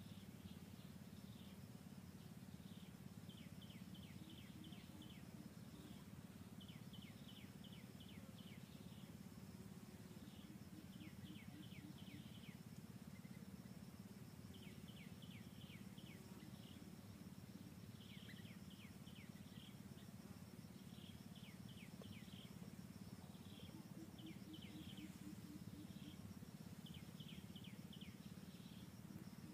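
Faint forest ambience: a steady high insect drone, with groups of quick high chirps every second or two over a low hum.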